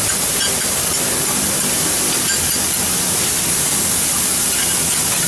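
Bean sprouts sizzling on a hot steel teppanyaki griddle as they are stirred with spatulas: a steady, loud hiss.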